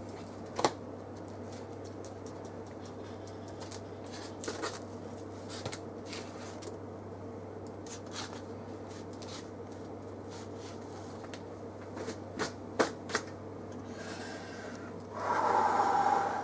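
Plastic spatula pressing and scraping through toasted grilled cheese sandwiches on plates: a scatter of soft clicks and scrapes over a steady low hum, with a louder sound lasting about a second near the end.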